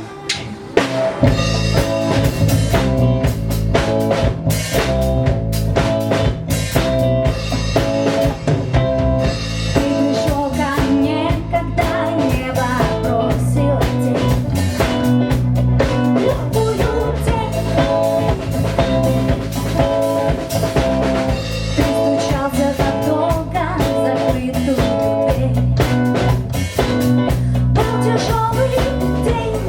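Live band playing a rock song, with drum kit, bass and guitar; the full band comes in about a second in.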